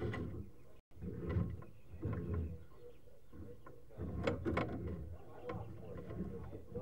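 Irregular scraping, rubbing and knocking as a sewer inspection camera is pushed along a drain pipe, with a brief dropout about a second in.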